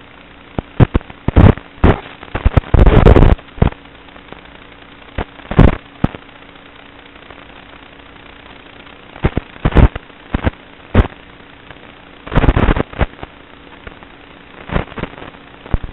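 Onboard audio from a small fixed-wing FPV plane in flight: a faint steady hum under loud, irregular crackling bursts. The longest burst comes about three seconds in, with more clusters around ten, twelve and a half and fifteen seconds.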